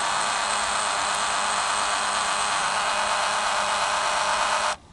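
Dymo LabelManager 160 label maker printing, its motor feeding generic label tape past the print head with a steady buzzing hiss that stops abruptly near the end.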